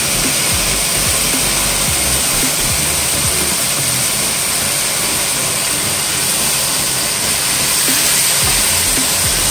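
Pork belly and kimchi sizzling steadily in a hot frying pan as they are stir-fried.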